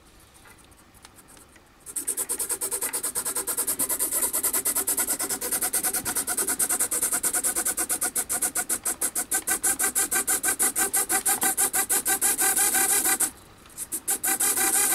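Two micro servos (Bluearrow D0474HT-HV) driving ornithopter flap arms back and forth in a fast, even rhythm, each stroke a short buzz of the servo gear train. It starts about two seconds in, stops briefly near the end, then resumes. The flapping cycle time is being changed from the transmitter.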